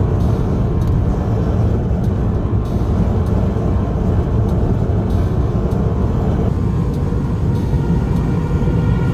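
Steady road and engine noise inside a car driving at speed: a continuous low rumble of tyres and wind with no breaks.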